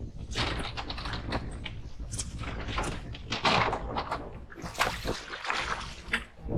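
Water slapping and splashing against a boat's hull in choppy seas, in irregular bursts, over a steady low rumble of wind on the microphone.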